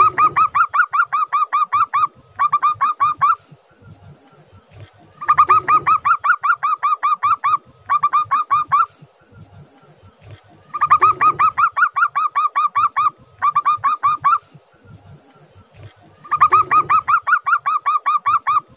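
Zebra dove (perkutut) singing its cooing song: a fast run of short, even notes, a brief pause, then a shorter run. The phrase repeats four times, about every five and a half seconds.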